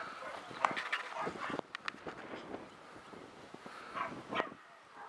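Dogs barking on and off.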